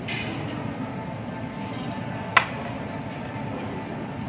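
Eating at a table: a steady low background hum with a single sharp clink of a utensil on a plate or dish about halfway through.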